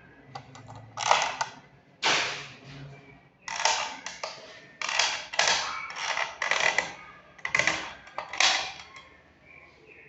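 A series of about nine short, harsh creaking sounds at uneven intervals, each with a sudden start and a quick fade.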